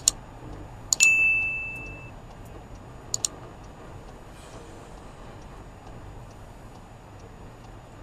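Subscribe-button sound effect: two quick mouse clicks, then a click and a bell ding about a second in that rings out for about a second, then two more quick clicks about three seconds in, over a faint steady background hum.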